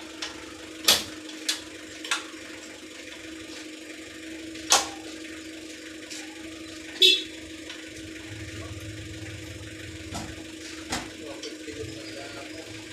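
Sharp metallic clicks and knocks, about seven, spaced a second or more apart, as a motorcycle's rear wheel is worked on at its hub and sprocket. The loudest, about seven seconds in, rings briefly. A steady hum runs underneath.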